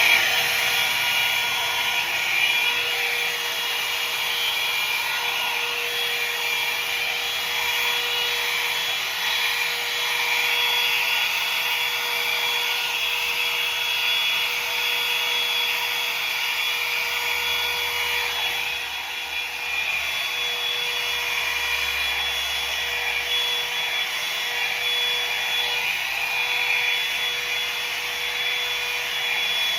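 Hair dryer switching on, its motor whine rising at once to speed, then running steadily with rushing air and a constant high whine, blowing hot air onto freshly set hair.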